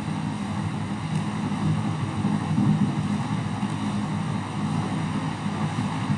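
Steady low rumbling background noise, even throughout, with no speech.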